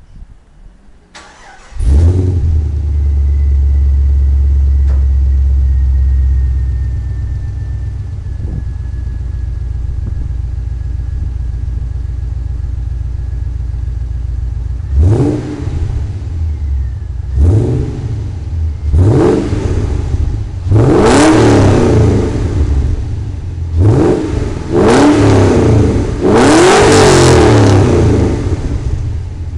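Holden VZ SS Z V8 with a 2½-inch exhaust and two rear mufflers, heard at the twin tailpipes. It cranks and fires about two seconds in, holds a high idle for a few seconds, then settles to idle. In the second half it is revved freely about seven times, the later revs longer.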